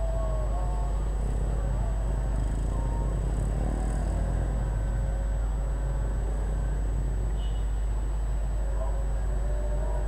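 Town street traffic, with motorcycles and cars passing through a roundabout, over a steady low rumble. A thin, steady high-pitched whine runs underneath.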